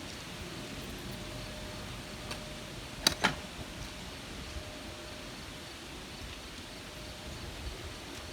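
Two quick, sharp knocks a fraction of a second apart, about three seconds in, over a steady background hiss.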